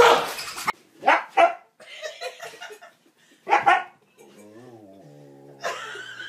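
Dog barking in short sharp pairs, then a longer wavering low-pitched sound.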